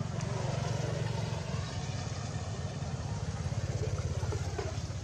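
An engine running steadily: a low, finely pulsing rumble.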